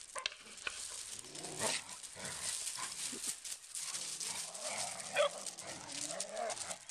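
Puppies play-fighting on gravel: paws scuffling and scattering the stones, with a few short puppy yips, the clearest about five seconds in.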